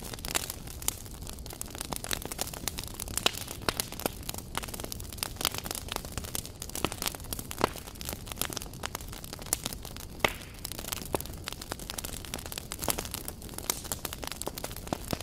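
Wood embers crackling under a sac griddle: irregular sharp pops, several a second, one louder about ten seconds in, over a steady low noise.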